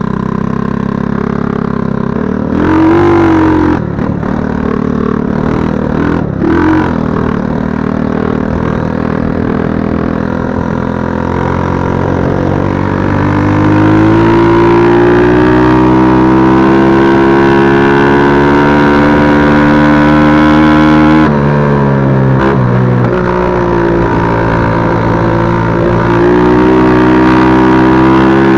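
Small single-cylinder four-stroke engine of a 110 cc quad running under way in third gear. The engine note climbs steadily as the quad gathers speed, dips briefly about two-thirds through, then climbs again.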